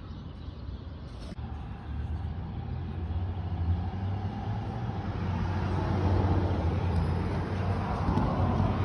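A motor vehicle's engine running, a steady low hum that grows louder over the first few seconds, with one short click early in.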